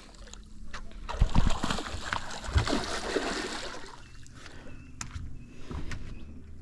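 Water splashing and sloshing beside a small aluminium boat, with a few low thuds about a second in and again near the middle.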